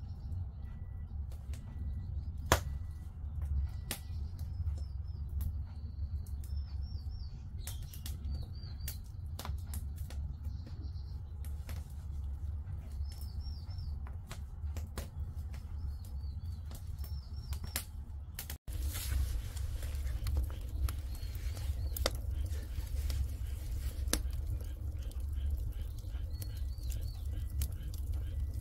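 Firewood burning in a Korean agungi firebox: a low steady rumble with scattered sharp crackles and pops. Small birds chirp in short repeated calls in the background, and the sound drops out for an instant about two-thirds through.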